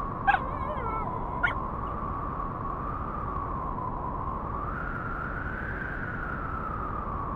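Two short, sharp animal calls with falling pitch, in the first couple of seconds, over a steady high tone that slowly wavers in pitch and a background hiss.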